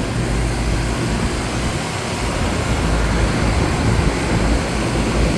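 Several 1999–2000 Bryant 561CP central air conditioner condensing units running together. Their compressors give a steady low hum under the steady rush of the condenser fans.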